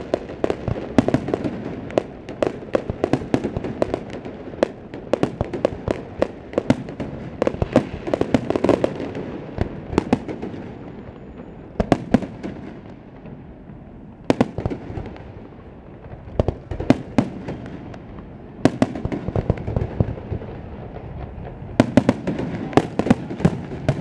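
Aerial fireworks going off: rapid irregular bangs and crackling, densest through the first ten seconds, then sparser single bangs, with another quick volley near the end.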